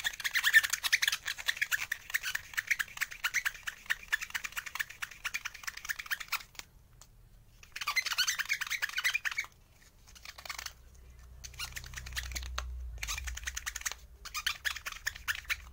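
Foam sanding buffer rubbed rapidly back and forth over the clear plastic window piece of a diecast toy car: a fast, scratchy rasp of many short strokes. It comes in several spells, the longest at the start, with short pauses about a third of the way in and again later.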